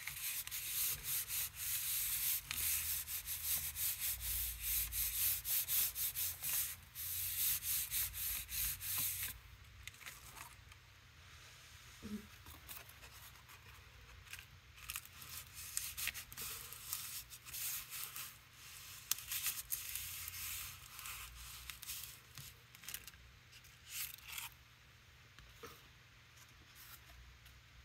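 Hands rubbing a corrugated cardboard stamp firmly against a gel printing plate: a dense, scratchy rubbing for about the first nine seconds, then quieter handling of cardboard with scattered light taps and rustles.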